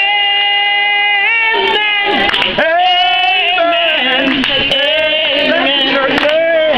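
Gospel singing led by a woman's voice, which holds one long note for the first second or so and then moves on through the melody.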